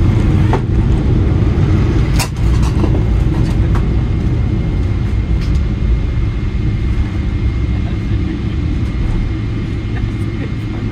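Cabin noise inside a Boeing 777-300ER on its landing rollout: a steady low rumble of the GE90 engines and the rolling aircraft, easing off gradually. There is one sharp click about two seconds in.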